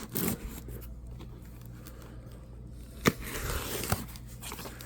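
A shipping package being handled and opened: faint rustling, then a sharp click about three seconds in followed by scraping and tearing of packaging and another click.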